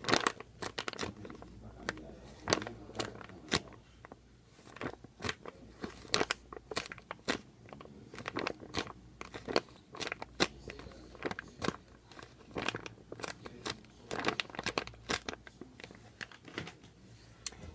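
Handling of a foam squishy toy close to the microphone: irregular sharp crackles and clicks, several a second, as it is squeezed and turned over in the hands.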